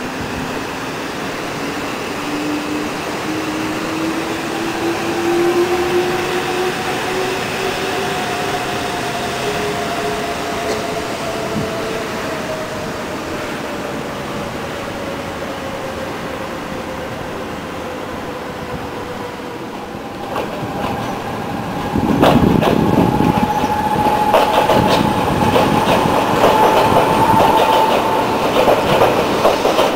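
New Shuttle rubber-tyred guideway train pulling away, its motors whining in two tones, one slowly rising and one slowly falling. About twenty seconds in, a louder electric commuter train takes over, rolling along steel rails with rapid clicking and rattling from its wheels.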